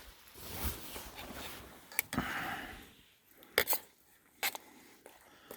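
Light rustling with a few sharp clicks and taps from gear being handled: one click about two seconds in, a quick pair a little later, and another near the end.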